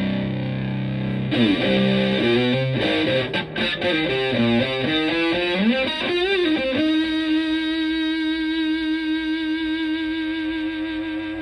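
Electric guitar (Stratocaster) through an Elk Super Fuzz Sustainar fuzz pedal and a Fender Twin Reverb-style amp. A low fuzzed chord rings out, then a quick run of single notes with bends about a second in, ending on one long held note that sustains near the end.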